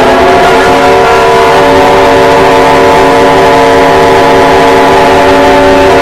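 Emergency alert siren held at one steady pitch with a stack of overtones, very loud.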